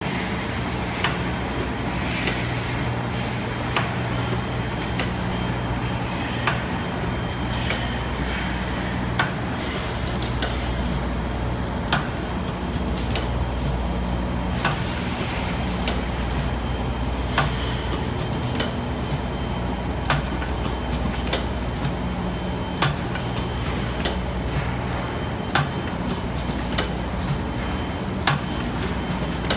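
DPP-80 flat-plate blister packing machine running on aluminium/aluminium foil, its forming, sealing and punching stations cycling. A steady motor hum sits under a sharp clack about every second and a half, every other clack louder.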